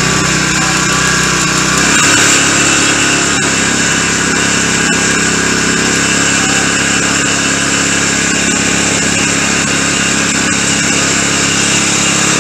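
Small outboard motor running steadily, its engine note shifting and getting a little louder about two seconds in.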